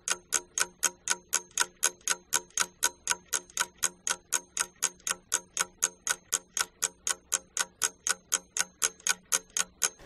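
Clock-ticking sound effect: a steady, even tick about four times a second, marking the pause given to think over a question.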